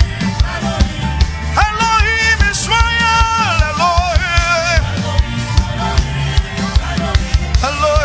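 A man singing a worship chant into a microphone over a live band with a steady drum beat. His sung lines come in from about one and a half seconds to five seconds in, and again near the end, with the band and drums going on between them.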